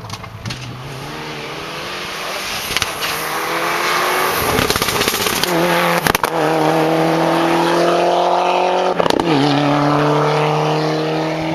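Mitsubishi Lancer Evolution rally car at full throttle, passing close by, its engine note climbing steadily in pitch through the gears. There are sharp cracks at the gear changes about six and nine seconds in, where the pitch drops and starts climbing again.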